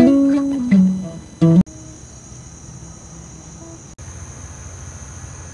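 Acoustic guitar playing a few sustained notes. About one and a half seconds in it cuts off abruptly to a steady, quieter high-pitched chirring of crickets and other insects.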